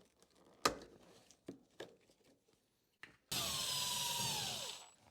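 A sharp knock, a few light clicks, then a power drill/driver motor runs for about a second and a half and winds down with a falling whine.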